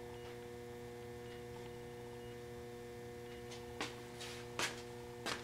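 Steady low electrical mains hum, with a few light clicks and knocks in the second half.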